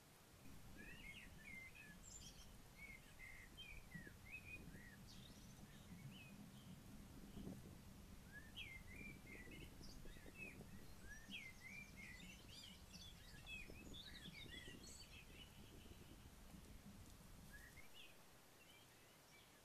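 Faint bird song: runs of short chirps and quick rising and falling whistled notes, over a low steady hum that stops near the end.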